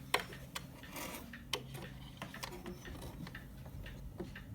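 Irregular light clicks and ticks from a Commodore clock's movement as it is handled and worked, over a low steady hum.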